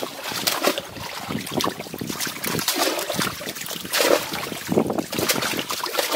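Irregular splashing and slapping of water as fish thrash in a cast net in shallow water.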